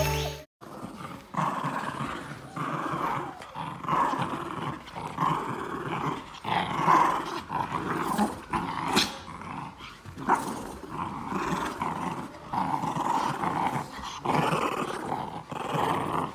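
German shorthaired pointer puppy growling close up, in short irregular bursts one after another.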